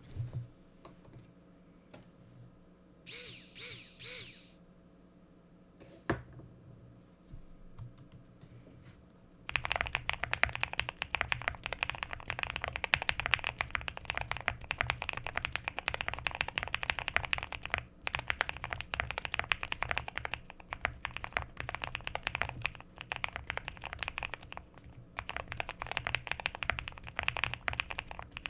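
QK65 mechanical keyboard with a POM plate, full foam, linear frankenswitches (Nixdorf top, Boba LT stem, Lilac bottom) and PBT keycaps being typed on. A few scattered key clicks and a brief hiss come first, then fast, continuous typing starts about ten seconds in and runs on.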